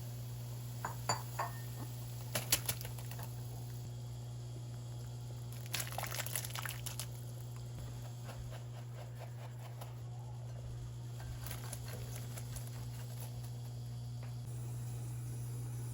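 Scattered light clinks and taps of kitchen utensils and dishes over a steady low hum, with a short cluster of clinks around the middle.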